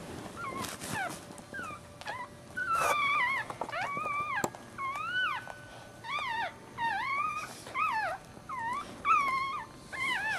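Newborn Maltese puppies crying: a run of short, high squeals that rise and fall in pitch, coming quickly one after another from about three seconds in. Some rustling is heard in the first few seconds.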